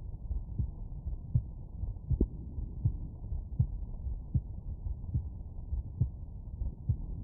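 Normal heartbeat heard through a stethoscope: regular low thuds, about 80 beats a minute, over a steady low rumble.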